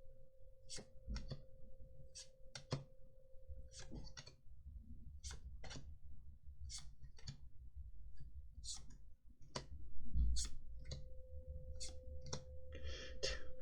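Magic: The Gathering cards being handled and flipped over one by one, giving a string of short, sharp clicks and snaps at an irregular pace of roughly one or two a second.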